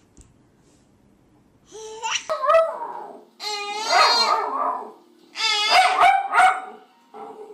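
A dog giving a run of drawn-out whining, howl-like calls that rise and fall in pitch, the longest about a second and a half.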